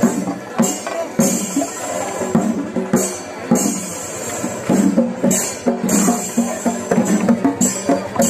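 Kerala temple festival percussion ensemble playing: drums beating with brass hand cymbals, their bright clashes coming in bursts every second or two.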